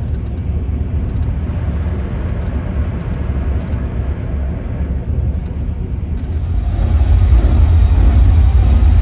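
Steady low rumble of road noise from a vehicle travelling on a motorway. About six seconds in it switches abruptly to a louder, deeper rumble.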